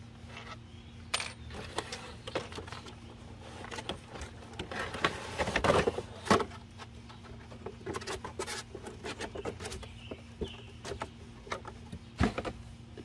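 A cardboard box and its molded pulp insert being unpacked: rustling, scraping and knocking, busiest around five to six seconds in, with sharp knocks then and again near the end.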